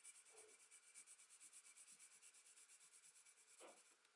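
Faint, quick, even strokes of a Tombow B graphite pencil shading on paper, about five strokes a second.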